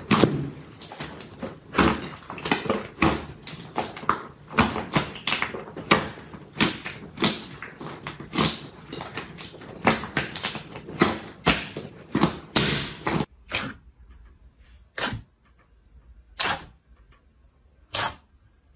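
Hands kneading and squeezing a large mass of slime, making repeated wet squishes and sticky pops of trapped air, one or two a second. After about thirteen seconds the sounds thin out to a few separate sharp pops a second or so apart, as fingers poke into thick slime.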